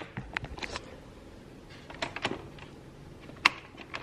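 A few scattered light clicks and knocks with no motor running: an electric hand mixer being switched and handled that will not start.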